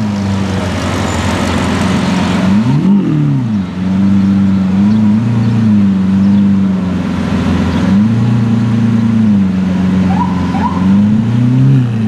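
Lamborghini Aventador's V12 idling, with a few short throttle blips that send the pitch up and back down, the sharpest about three seconds in.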